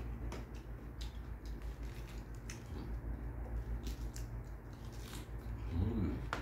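Crisp crunching and chewing of raw lettuce leaves, with scattered crackles as leaves are torn, over a steady low hum.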